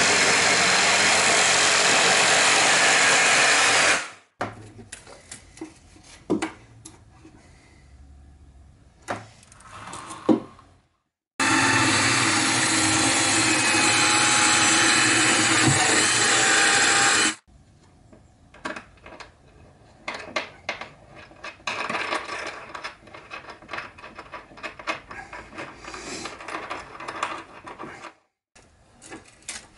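Electric jigsaw cutting through a wooden board for about four seconds, stopping suddenly. After quieter knocks, a cordless drill runs steadily for about six seconds driving into wood, followed by short drill bursts and handling knocks.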